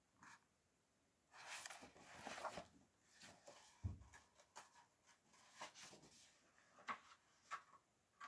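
Faint handling noises of a book being lowered and handled: brief rustling, a soft thump about four seconds in, and a few small clicks and taps.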